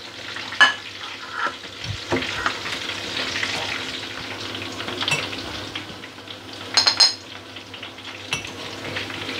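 Pestle pounding and grinding fried tempe with chillies and garlic in a glazed ceramic mortar, with scattered knocks, then a metal spoon scraping the mash out and clinking sharply against the ceramic about seven seconds in.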